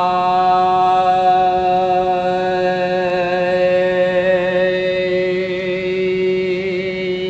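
A woman overtone singing: one long note held on a steady pitch while she moves through the vowels A, Ä, E, I, so that different overtones stand out in turn above the drone. A higher overtone comes through near the end.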